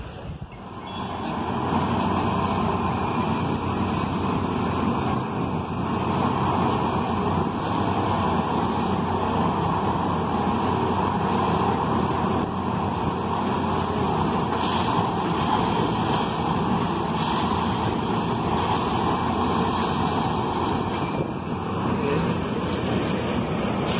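Diesel engine of a Plasser India 08-475 Unimat 4S track tamping machine running steadily close by.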